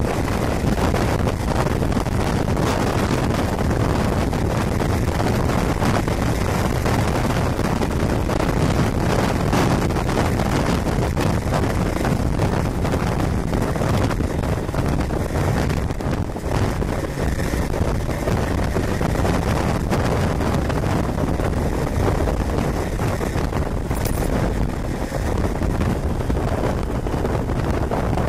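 Kawasaki Balius 250cc inline-four motorcycle running at road speed, with heavy wind buffeting on the microphone.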